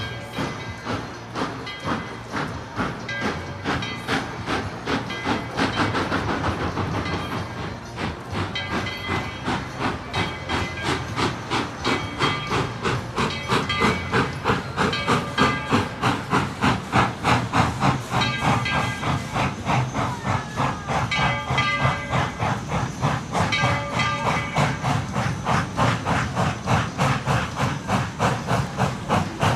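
Tweetsie Railroad's steam locomotive No. 12, a narrow-gauge Baldwin 4-6-0, chuffing as it pulls its train away. Its exhaust beats quicken to about three a second, over a steady hiss of steam.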